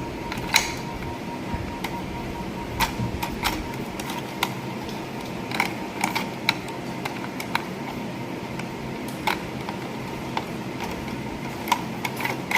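Plastic toy track pieces being handled and fitted together: scattered light clicks and taps, a second or two apart, over a faint steady hum.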